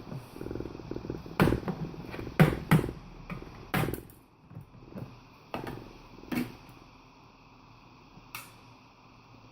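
Screws being taken out of the plastic bottom cover of an Acer Aspire ES1-532 laptop with a screwdriver: a fast low rattle with sharp clicks and knocks of the tool and screws on the plastic, about seven of them, thinning out over the last few seconds.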